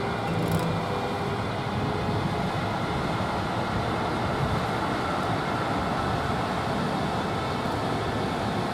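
Steady rail-depot noise: a continuous rumble and hiss with no distinct events.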